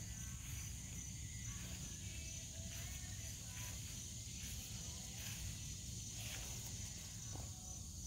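Quiet outdoor ambience: a steady high-pitched insect chirring with a low rumble underneath, and faint footsteps crunching on gravel about once a second.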